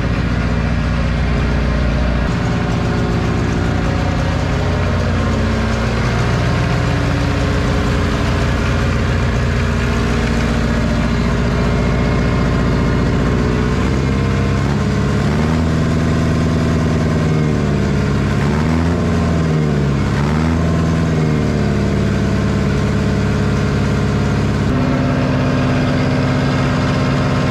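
1960 John Deere 1010's four-cylinder pre-combustion diesel engine running steadily, its speed swinging up and down several times in the middle before settling again. The engine is worn: leak-down testing showed the cylinders leaking past the rings into the crankcase.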